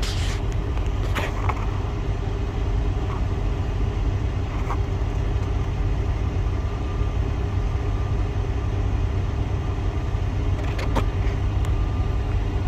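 Semi truck's diesel engine idling steadily, a low even rumble heard from inside the cab, with a few faint clicks about a second, five seconds and eleven seconds in.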